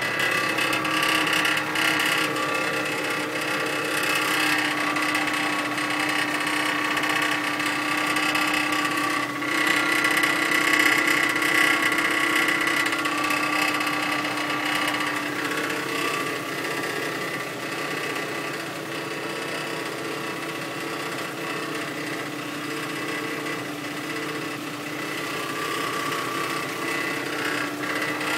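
Weird buzzing from a 2005 Nissan Xterra: a steady mechanical buzz made of several held tones, drifting slowly in pitch and loudness.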